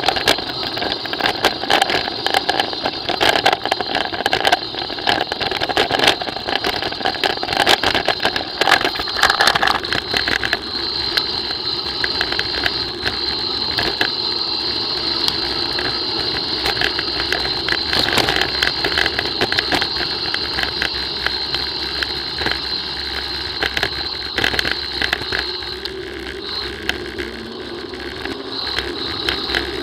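Mountain bike coasting downhill on an asphalt lane: steady wind and tyre noise with frequent rattles and knocks as it rolls over bumps, heard from on the bike.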